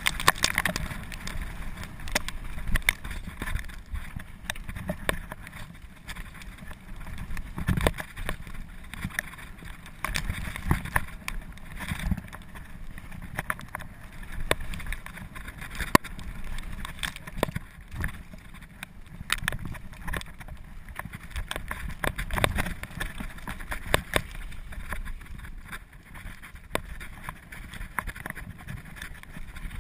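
Mountain bike descending a rough dirt trail: a constant low rumble and rattle with frequent sharp knocks as the bike jolts over bumps.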